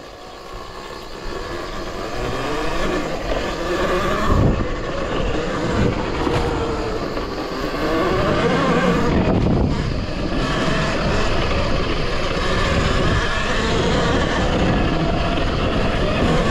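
Talaria Sting electric dirt bike, on a 72 V battery and Nucular P24F controller with its stock motor, under way on a trail: the motor whine glides up and down in pitch with speed over a rushing noise. It builds louder over the first several seconds.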